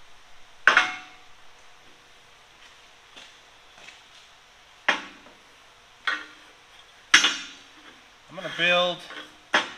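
Five sharp metal clanks of small steel pieces being knocked and set down on a steel frame, each ringing briefly, the loudest about a second in and about seven seconds in.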